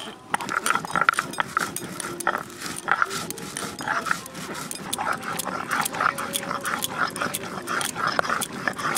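Stone roller rubbed back and forth on a flat stone grinding slab (shil-nora), crushing dry-roasted whole spices: a gritty scraping stroke repeated about three times a second, with small knocks of stone on stone.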